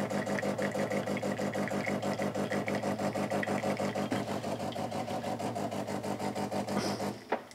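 De'Longhi Magnifica S ECAM 22.110.B espresso machine's pump running, pushing hot rinse water out through the coffee spouts as a steady hum with a rapid pulsing. It cuts off abruptly about seven seconds in.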